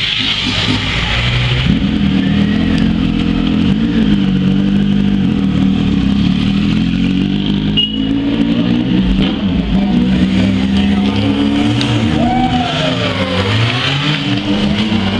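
Motorcycle engine running steadily, then revved up and down near the end as the bike pulls away.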